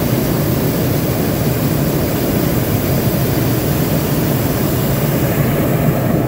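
Hot-air balloon's propane burner firing: a loud, steady roar that cuts off abruptly near the end.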